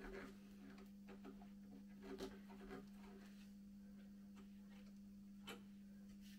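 Near silence with a steady low hum, broken a few times by faint clicks of a screwdriver working the screws of a metal latch fitting on a wooden window frame.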